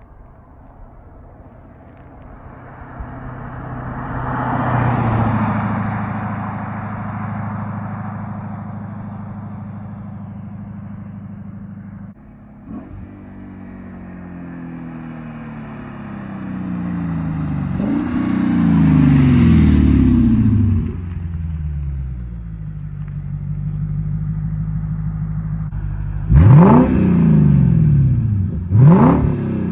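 Lexus IS F's V8 through an X-Force cat-back exhaust. First the car drives past, swelling and fading. Then it accelerates hard, its pitch climbing and dropping back at each upshift. Near the end come two quick, sharp free revs at standstill.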